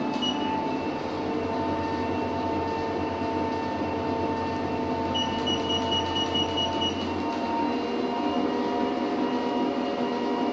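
Fitkit Cult TurboRun treadmill running steadily at its top speed setting of 12.8: the BLDC motor whines and the belt and deck rumble.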